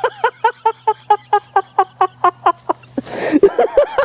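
Hysterical laughter: a rapid run of short 'ha' pulses, about six a second, broken about three seconds in by a wheezing in-breath, after which the laughing starts again.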